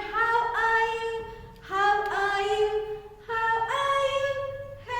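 A high voice singing a melody unaccompanied, in long held notes with short breaks between phrases.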